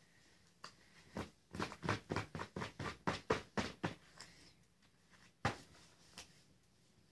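A hand tapping and dabbing in a plastic paint tray: a quick run of light taps about six a second for a couple of seconds, then a sharper single tap and one more.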